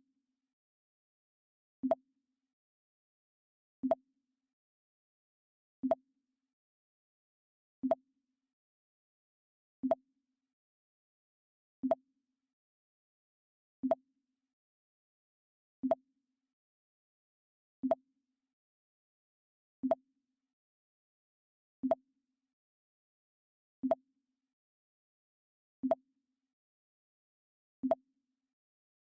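The Mac OS X 'Pong' alert sound, a short blip, played over and over at an even pace of about one every two seconds, with silence between.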